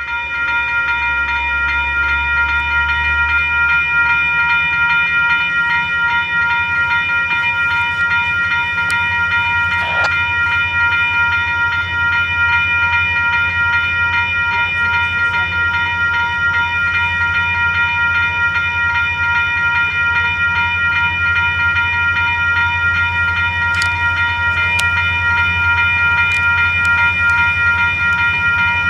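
Union Pacific intermodal train led by an SD70M diesel locomotive approaching a grade crossing: a steady chord of high tones held without a break over the locomotive's low engine rumble.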